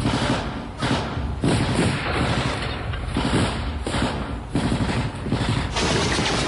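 Assault rifle gunfire: sharp shots at irregular intervals, at times two or three a second, over a constant noisy background.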